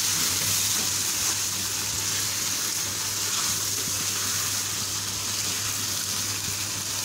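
Chicken pieces frying in oil and their own released juices in a spiced masala in a pan, a steady sizzling hiss, while a spatula stirs them. This is the meat being cooked down (bhuna) as the juices boil off.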